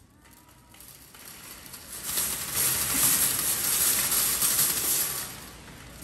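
Wire shopping cart rattling loudly as it is rolled across the tile and mats for about three seconds, starting about two seconds in.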